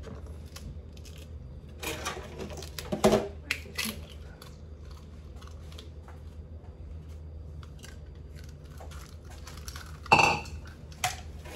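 Kitchen bowls and utensils clattering: a few knocks and clinks about two to three and a half seconds in and again near the end, over a steady low hum.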